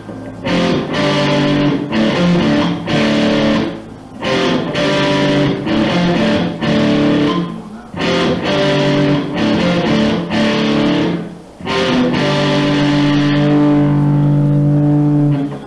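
Guitar-led music, played in short phrases with brief breaks between them and ending on a long held chord.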